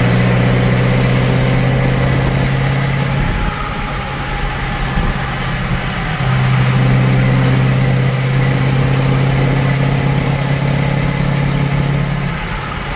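Dump truck engine running with a steady low drone that drops away about three seconds in and comes back about three seconds later.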